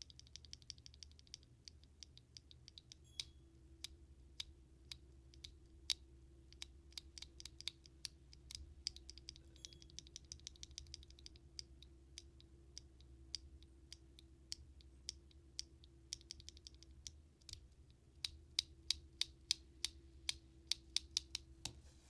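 Loose mechanical keyboard switches with POM plastic housings clicking and clattering against each other as a hand sifts through a pile of them. Near the end the clicks turn louder and more regular, about three a second.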